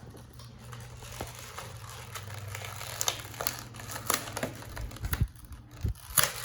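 Plastic toy packaging crinkling and clicking as it is handled and opened, over a steady low hum.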